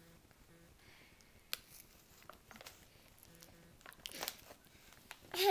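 A toddler chewing a crunchy snack, with scattered small clicks and crinkles from the plastic snack bag in her hand. A brief child's vocal sound comes right at the end.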